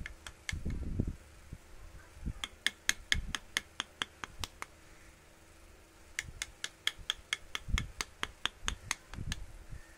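Rapid light tapping of a small hammer on a wood-carving chisel, about five ringing strikes a second in two runs with a short pause between them, plus a few duller knocks. A faint steady hum runs underneath.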